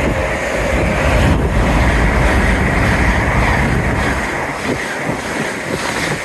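A train passing at speed close by: a loud rush and low rumble with wind buffeting the microphone, the rumble dropping away about four seconds in as the train goes by.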